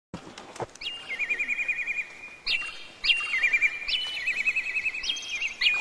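A bird singing: repeated phrases, each a quick rising note followed by a rapid, even trill, several times over.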